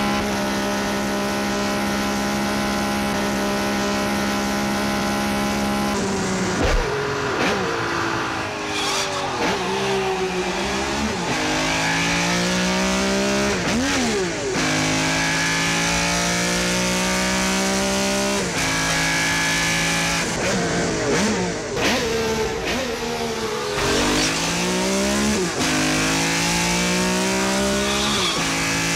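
Mazda MX-5's four-cylinder engine holding a steady speed for about six seconds, then rising and falling in pitch again and again as the car accelerates, changes gear and slows, with several sharp rev spikes along the way.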